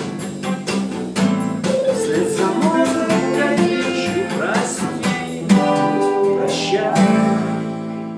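Acoustic guitar strummed along with a backing track played through a small speaker, the instrumental close of the song. A rising slide about halfway through, and a final chord near the end rings out and fades.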